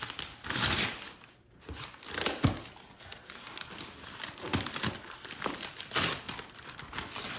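Gift wrapping paper being torn and crinkled off a large box by hand, in a series of short rustling bursts, with a soft thump about two and a half seconds in.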